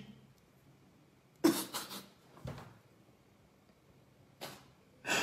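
A man's short, sharp breaths and sniffs, a handful of them with pauses between, as he holds back tears.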